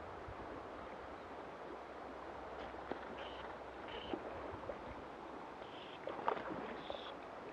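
Steady rush of a flowing river. A few short high chirps and some light knocks sit over it, the loudest knock about six seconds in.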